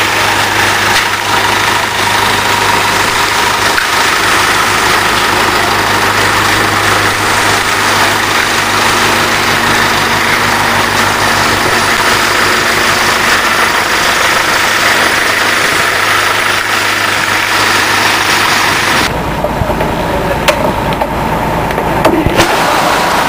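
Bus engine running steadily. About nineteen seconds in the sound changes abruptly to a lower rumble.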